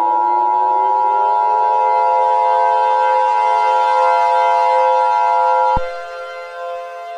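Loud electronic siren-like alarm tones: a strong steady high tone over a chord of lower held tones, with a low tone gliding upward in the first second or so. About six seconds in the high tone cuts off suddenly and the sound drops in level, leaving the lower tones sustained.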